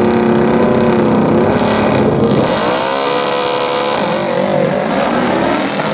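Racing lawn mower engines running hard down the drag strip, loud and steady at first, with the pitch bending about halfway through.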